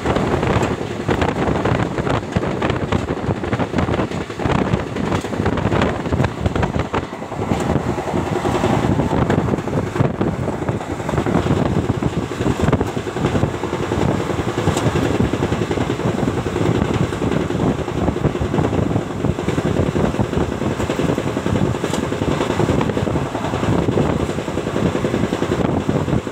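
Netaji Express passenger train running at full speed, heard from an open coach door: a steady loud rumble with rapid clattering of wheels over the rails.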